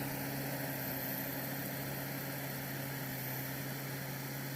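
Tracked rice combine harvester running, its engine a steady low drone that holds one pitch throughout.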